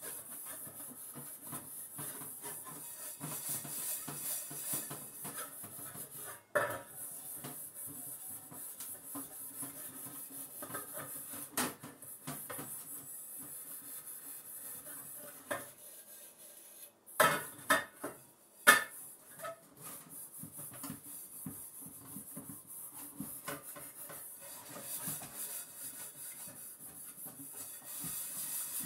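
Metal pots being scrubbed with a sponge in a stainless-steel sink, a steady rubbing broken by occasional clanks of metal on metal, with a few louder clanks about two-thirds of the way in.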